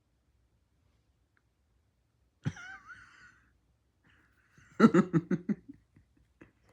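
A person giggling in a quick run of short laughs about five seconds in, preceded about halfway through by a brief wavering vocal sound.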